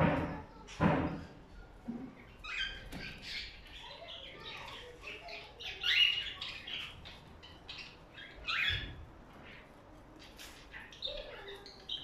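Caged cockatiels chirping and squawking in short, repeated high calls. There are two thumps in the first second or so.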